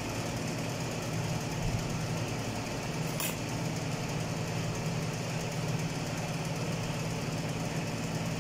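Steady low hum of running machinery, with one light click about three seconds in.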